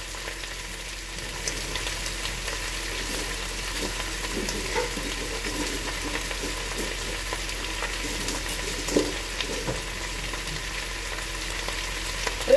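Chopped cabbage sizzling steadily in hot oil in a frying pan, with faint scattered crackles.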